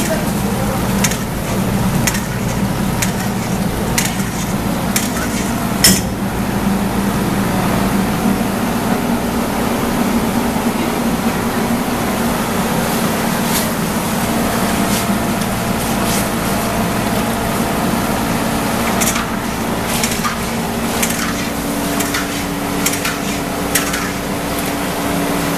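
Kitchen work: knocks and clatter of utensils and dishes over a steady low hum. The knocks come about once a second at first and bunch together near the end.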